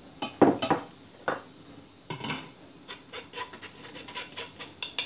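Metal mesh sieve clinking and scraping against a stainless steel pot while a flour-and-water thickener is strained to hold back lumps. Scattered knocks at first, the loudest about half a second in, then a run of quicker, lighter taps near the end.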